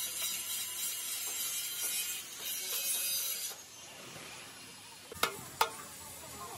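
A scraping, rasping noise of something rubbing against a hard surface, which stops about halfway through, then two sharp taps a moment apart.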